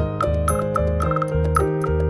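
Background music: a light instrumental tune with bell-like keyboard notes over a pulsing bass and a steady ticking beat.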